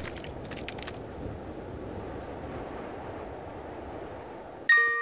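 Quiet night-time ambience: a steady low rumble with a faint high, steady tone over it and a few soft clicks in the first second. Near the end a bell-like mallet note rings out as music begins.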